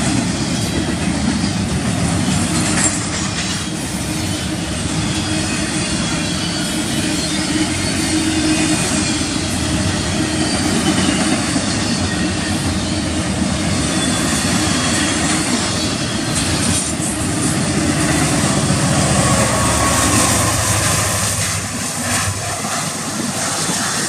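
Double-stack container well cars of a freight train rolling past close by: a steady rumble of steel wheels on rail with a few sharp knocks and a faint high wheel squeal. The noise falls off after about 21 seconds as the end of the train moves away.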